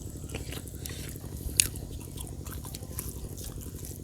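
A person chewing food close to the microphone, with a sharp crunch about a second and a half in, over a steady low hum.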